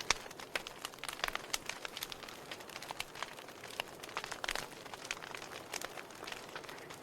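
Wood fire in a fireplace crackling: irregular sharp pops and snaps over a soft steady hiss, the loudest pop just after the start.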